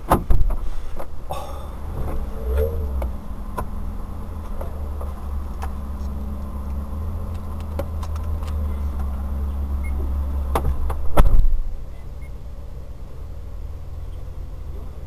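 Low steady rumble of a vehicle idling, heard from inside the cab. It opens with a sharp knock, and about eleven seconds in a couple of clicks and a loud clunk come before the rumble drops away to a quieter hiss.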